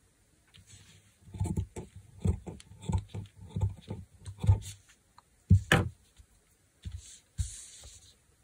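Crafting materials handled on a work table: a run of short, soft knocks, then a few sharper knocks and a brief rustle near the end.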